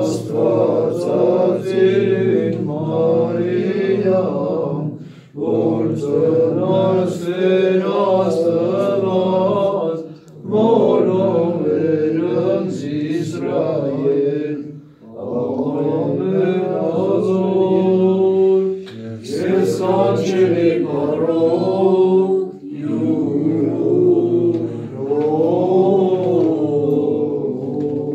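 Slow sung Armenian church chant, in phrases of about five seconds with short pauses between them.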